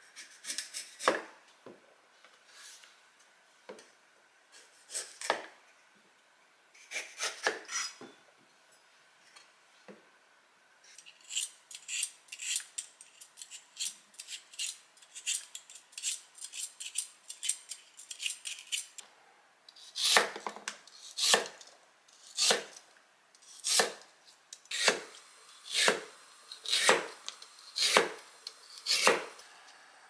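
A steel Y-peeler scrapes the skin off a lotus root over a wooden cutting board, in short strokes that come quickly through the middle. From about two-thirds through there is a run of louder, regular strokes about once a second, as a knife cuts the root on the wooden board.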